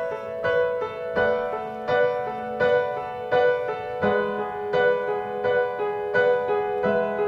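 Piano playing the instrumental intro of a slow song: sustained chords with notes struck in a steady, even rhythm.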